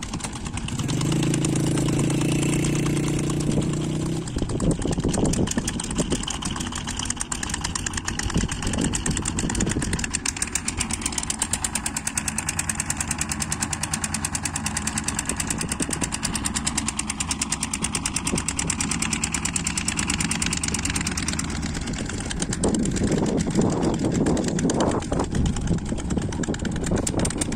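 An engine running steadily with a fast, even firing beat. About a second in, a steady held tone sounds for some three seconds, and voices come in near the end.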